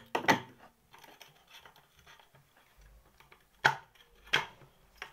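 Sharp metallic clicks and knocks from handling a radiator fan motor's armature and housing: two at the start, two more about three and a half and four and a half seconds in, with faint small clatter between.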